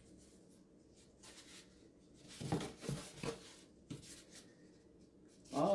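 Foam parts of a model airplane rubbing and scraping faintly as a foam cover panel is handled and lifted off the fuselage, with a brief louder sound near the end.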